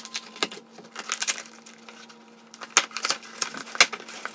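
Scissors snipping through packing tape along the seam of a cardboard shipping box, then the tape crackling and the cardboard flap rustling as it is pulled open by hand: a run of irregular sharp clicks and crackles.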